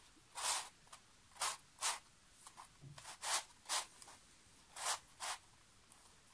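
Plastic pieces of a large 3D-printed twisty puzzle scraping and clicking as its faces are turned by hand: about seven short turning sounds, several of them in quick pairs.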